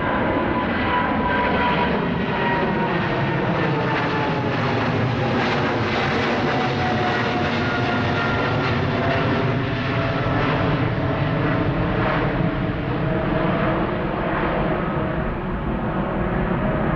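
A Boeing 777-300ER climbing out after take-off, its two GE90-115B turbofans at climb thrust: a loud, steady jet rumble with an engine whine that falls steadily in pitch as the jet passes overhead and moves away.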